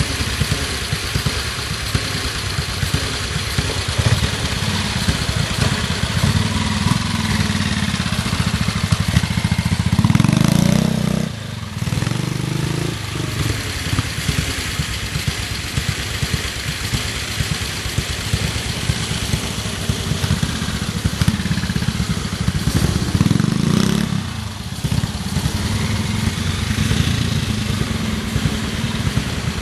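Vintage trials motorcycle engines running at low, uneven revs as riders pick through a trials section, with two brief dips in the sound.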